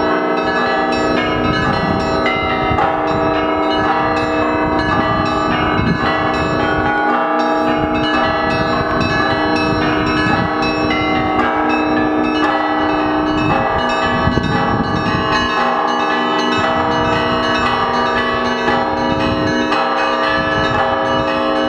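Russian Orthodox monastery bells rung together in a continuous peal: many bells of different pitches struck again and again, their tones overlapping and ringing on without a break.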